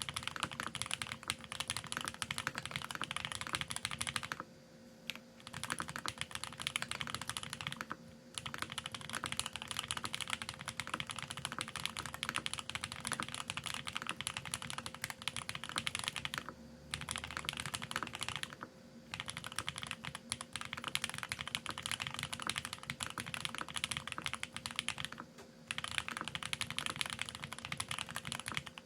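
Continuous fast typing on a Geonworks F1-8X mechanical keyboard fitted with lubed TTC Speed Silver v2 linear switches and GMK ABS keycaps, with short pauses about five times.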